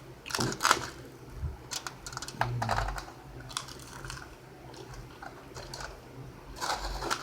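A person biting and chewing crunchy fried food close to the microphone, in clusters of crisp crunches with quieter chewing between.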